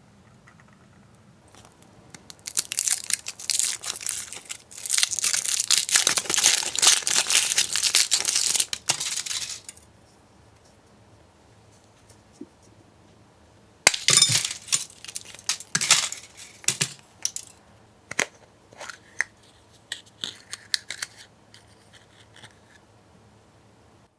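Thin foil wrapper crinkling as it is peeled off a chocolate egg for several seconds. About fourteen seconds in, a sharp crack as the chocolate shell is broken, followed by a run of small clicks and taps as the plastic capsule inside is opened.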